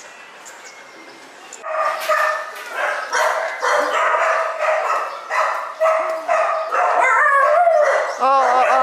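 Several shelter dogs barking at once. The barking breaks out about two seconds in and keeps going in a dense, overlapping chorus, with high yelps that rise and fall near the end.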